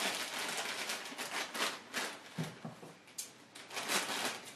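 Clear plastic bag crinkling and rustling as it is pulled at and handled, busiest in the first two seconds, then sparser crackles, with a sharp scissor snip into the plastic near the end.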